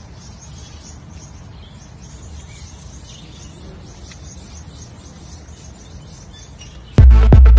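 Outdoor ambience: small birds chirping over a steady low rumble. About seven seconds in, loud electronic music with a heavy, regular beat cuts in.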